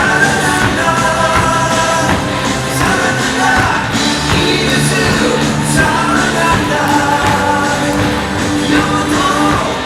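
Baseball stadium crowd singing a Hanwha Eagles cheer song in unison over backing music, loud and continuous.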